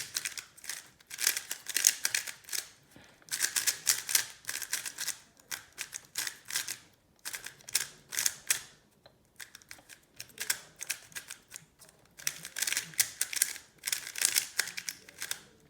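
MoYu RS3M 2020 3x3 speedcube being turned fast: bursts of rapid plastic clicking and clacking, each lasting a second or two, with short pauses between them.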